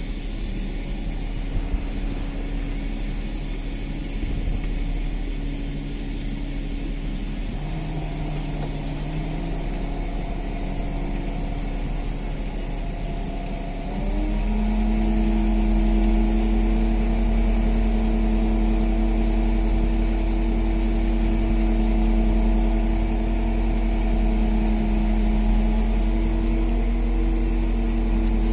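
Fishing boat's engine and deck machinery running with a steady hum. About halfway through the hum jumps up in pitch and gets louder, then holds steady.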